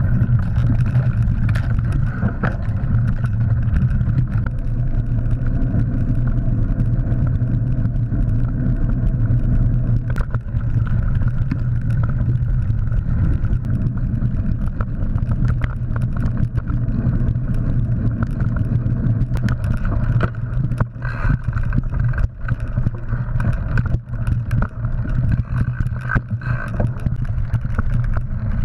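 Mountain bike ride heard from a bike-mounted GoPro: a steady low rumble of tyres on the dirt trail and wind on the camera, with many small rattles and knocks as the bike jolts over bumps.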